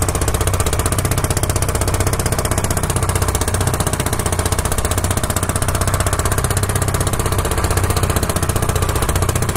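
Fishing boat's engine running steadily under way, a loud, fast, even knocking.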